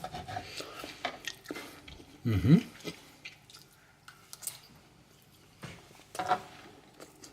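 A person chewing a mouthful of food, with wet mouth noises and small clicks. There is a short hum about two and a half seconds in, and a louder patch of chewing around six seconds.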